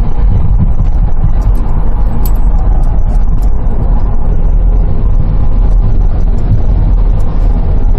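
Hyundai Grand Starex van driving along a road, heard from inside the cabin: a steady, loud, low engine and road rumble.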